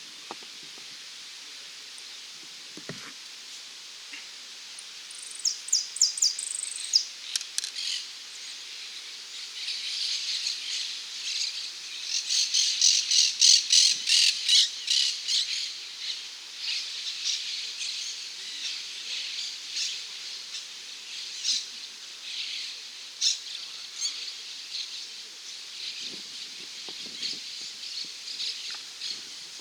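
Saffron finch (dorado) singing: a quiet few seconds, then from about five seconds in rapid strings of sharp, high notes, loudest and densest around the middle, breaking into shorter phrases toward the end.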